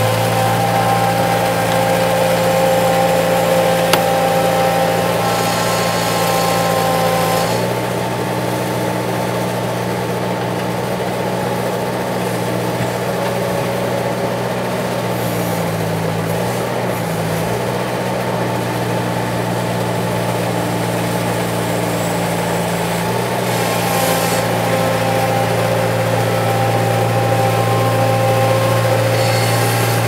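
Bobcat T190 compact track loader's diesel engine running steadily while the loader moves, with a thin high whine over the engine note. The engine note shifts a few times, about 7 seconds in, around 16 seconds and again near 24 seconds.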